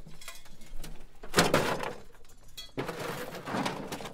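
Intro sound effects: a few sudden noisy hits, each dying away within about a second, the loudest about a second and a half in and another near three seconds.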